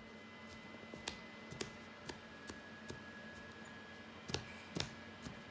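A cat licking another cat's head fur while grooming: a string of small, irregular tongue clicks, the two loudest about four and a half seconds in, over a faint steady hum.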